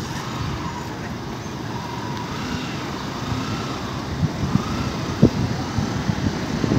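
Steady road traffic noise, with a faint wavering whine above it.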